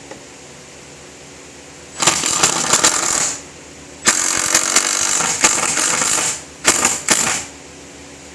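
Power drill driving a wood screw in three bursts, its motor whining with a rattling clatter, the last burst short as the screw seats.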